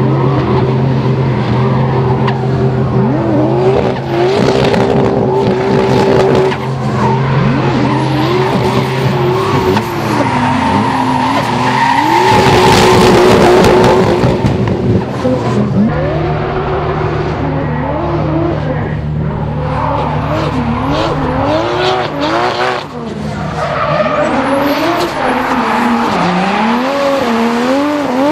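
Drift cars sliding sideways: engines revved hard, their pitch climbing and dropping again and again as the throttle is worked, over the continuous squeal and hiss of spinning, smoking tyres. The loudest stretch comes about halfway through.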